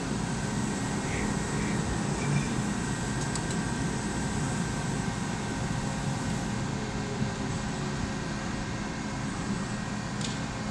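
CNC lathe running with a steady hum and a few faint, steady whining tones.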